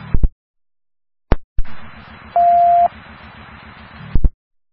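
Police scanner radio with no one talking: short squelch clicks, then an open channel hissing, with one steady beep lasting about half a second midway, cut off by a squelch tail.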